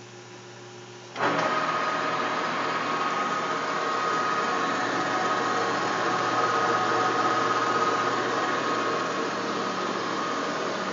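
TOS Trenčín SN40 lathe switched on about a second in: the spindle drive and headstock gearing start abruptly out of a low hum and run steadily, with a steady whine.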